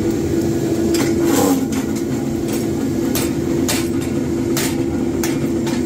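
A forging power press runs with a steady drone that briefly dips in pitch about a second and a half in. Over it come sharp metal knocks about one or two a second, from hammer blows on hot steel wheel-stud blanks in a die.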